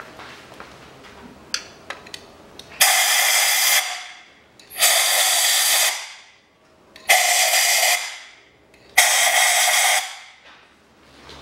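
Compressed-air blow gun blowing dirt off the spark plugs down in their wells: four short blasts of hiss, each about a second long, with a few light clicks before the first.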